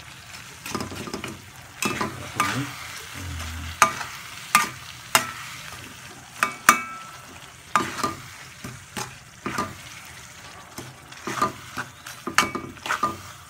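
Metal spoon stirring and scraping chilli sambal in an aluminium pan, with sharp clinks of spoon on pan about once a second, some ringing briefly, over a faint sizzle of the sambal frying in oil.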